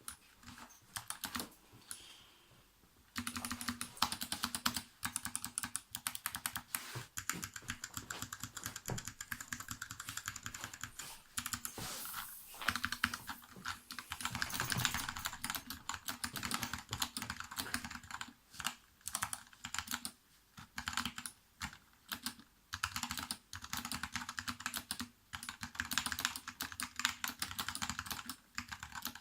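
Fast, continuous typing on an Input Club K-Type mechanical keyboard with Kailh BOX switches, each keystroke a sharp click. It has clipped and lubed stabilisers and butyl rubber dampening. The typing thins out briefly about two seconds in, then runs on at a steady pace.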